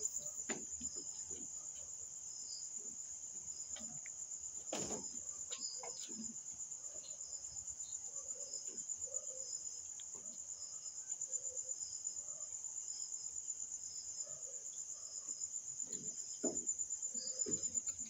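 A cricket trilling continuously at a high, even pitch, with scattered soft knocks and scuffs underneath.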